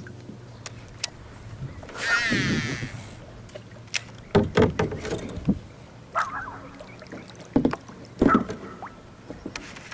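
Knocks and bumps of fishing gear being handled in a kayak, with a loud rushing noise about two seconds in.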